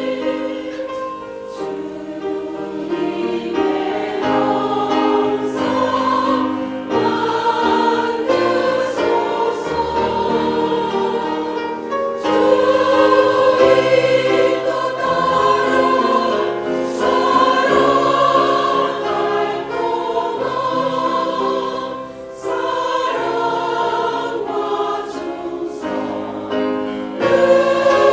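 A choir singing, with sustained chords that change every second or so.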